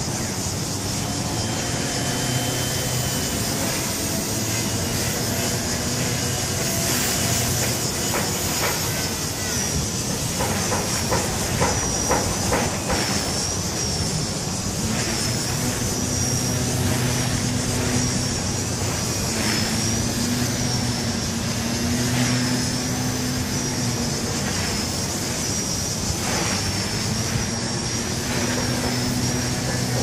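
Walkera V120D02S micro RC helicopter in flight: a high motor and rotor whine that swings up and down in pitch about once a second from about ten seconds in, as the helicopter rocks back and forth through tic-toc manoeuvres.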